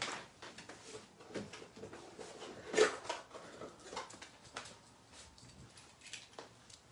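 Faint scattered clicks, taps and rustles of objects being handled and moved about, with one louder short sound about three seconds in.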